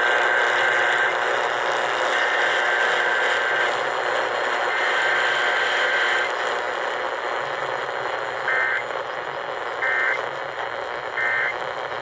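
Emergency Alert System SAME data tones played over an AM radio's speaker: three buzzy digital header bursts of about a second and a half each, then three short end-of-message bursts about a second and a half apart, over steady AM static hiss.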